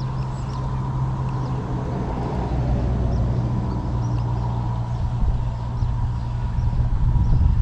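An engine running steadily with a low hum, growing a little louder toward the end.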